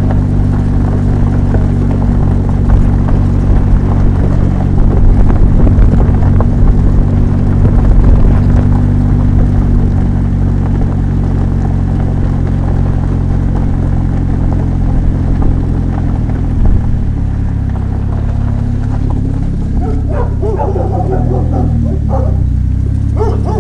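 Rewaco GTR turbo trike's engine running steadily under way, dropping to a lower, slower note about two-thirds through as the trike slows. Near the end a dog barks several times.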